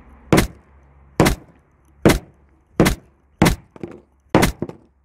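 Hammer blows smashing a smartphone lying on wooden boards: six sharp, evenly spaced strikes, a little under one a second, cracking the screen further. Lighter knocks follow the last two blows.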